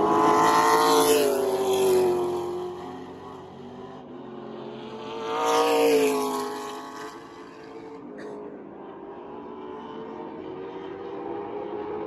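Outlaw late model stock cars going by at speed on a paved oval: two loud pass-bys, one about a second in and another around six seconds in, each engine note dropping in pitch as the car goes past. In between and near the end, engines are heard more faintly from the far side of the track.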